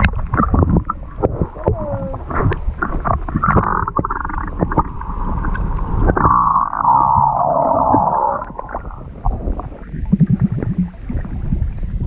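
Water splashing and sloshing around an action camera as it dips in and out of the water, with muffled underwater gurgling while it is submerged.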